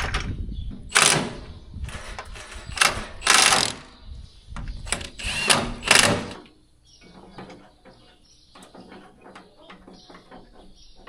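Metal parts clanking and scraping as the corn head's drive is worked on, with loud rattling bursts through the first six seconds. After that only light, scattered metallic clicks and ticks.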